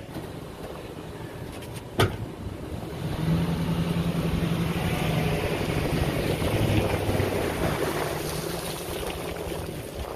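Boat engine running under power as the boat backs off a submerged trailer, with propeller wash churning the water. It starts about three seconds in, is loudest midway, and eases off as the boat pulls away. A single sharp knock comes about two seconds in.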